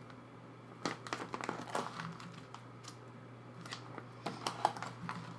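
Plastic photocard binder pages and sleeves crinkling and clicking as they are handled and turned. There are two spells of rustling, about a second in and again near four seconds.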